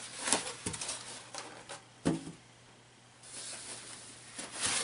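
Styrofoam packing end caps being worked loose and pulled off a plastic-bagged electronics unit, foam scraping against foam and the bag rustling. The sound comes in several short scrapes, then a longer rustle that builds to a loud scrape near the end.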